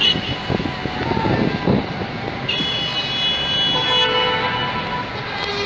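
Horns sounding over a steady noisy background. A high-pitched steady tone is held for about a second and a half from about halfway through, overlapped at its end by a short, lower horn toot, and another lower horn starts just before the end.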